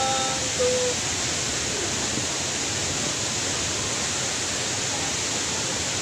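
Steady rushing of a waterfall, an even hiss of falling water with no change in level.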